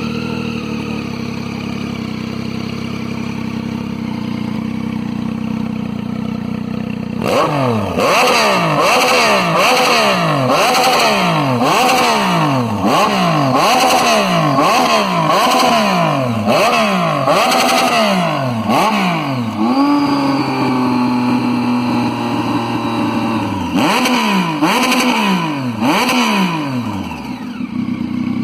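Triumph Tiger 800's three-cylinder engine with a sport exhaust, idling steadily, then revved hard again and again, about once a second, each rev falling back toward idle. Partway through it holds a raised idle for a few seconds. Then comes another short burst of revs before it settles back to idle near the end.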